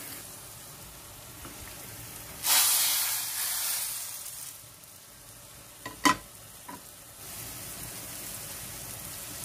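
Garlic fried in hot oil is poured into a pot of dal as a tempering (baghar). It hisses loudly for about two seconds from a couple of seconds in, then settles to a low sizzle. A sharp metal clink of pan or spoon against the pot comes about six seconds in.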